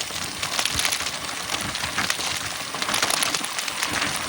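Mountain bike rolling fast over a rough dirt trail: a steady tyre crunch and rush, broken by many short knocks and rattles from the bike over the bumps.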